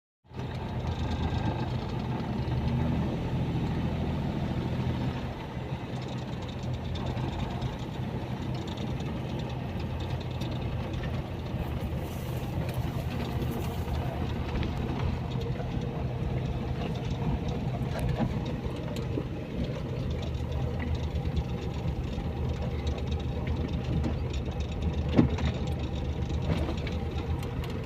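An engine running steadily at an even speed, with a single sharp knock late on.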